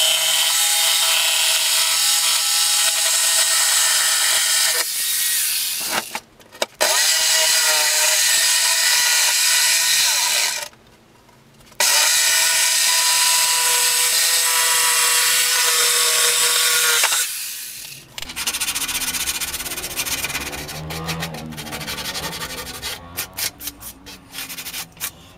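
Power tool running and cutting in three long stretches, stopping twice. After it stops, quieter scraping and handling noises and a few clicks follow.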